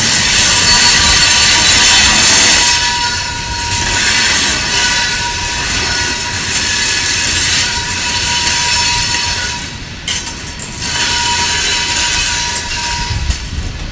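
Loaded rock hopper cars rolling past on the rails: a steady rumble and hiss of wheels on track with a thin, steady squeal from the wheels, easing briefly about ten seconds in.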